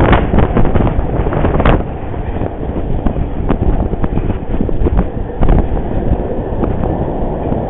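Wind buffeting the camera's built-in microphone: a heavy, low rumble broken by sharp pops, loudest in the first two seconds.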